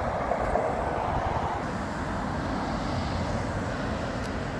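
City street traffic: cars driving past with a steady rush of tyre and engine noise.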